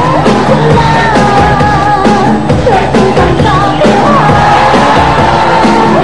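Khmer boxing ringside music (pleng pradal): a reed pipe plays a high, wavering, ornamented melody over the ensemble, with the crowd yelling.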